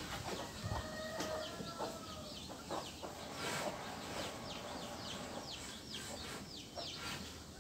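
Chickens calling: repeated short, high peeps throughout, with a longer steady call lasting about two seconds near the start. There are a few faint knocks as well.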